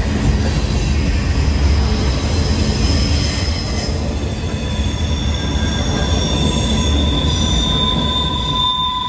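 Norfolk Southern freight train rolling past, with a steady low rumble of cars on the rails and high-pitched wheel squeal. The squeal settles into a steady two-note tone about four seconds in.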